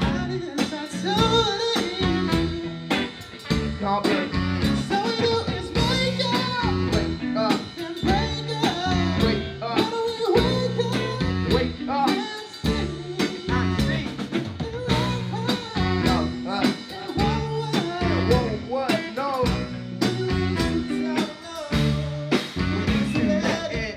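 Live band music: drum kit keeping a steady beat under bass and guitar, with a sung melody carried over it.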